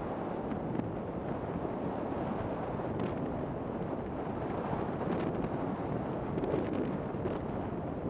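Wind rushing over a camera microphone during a downhill ski run, a steady rumbling hiss, with the faint slide of skis over groomed snow.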